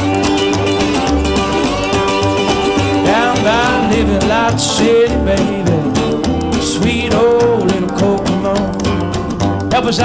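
Background music: a country-style song with guitar, in an instrumental stretch with sliding, bending notes.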